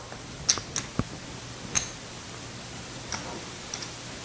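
Casino chips clicking against one another as they are picked up and set down in stacks on a felt craps layout: about six separate sharp clicks, spaced irregularly.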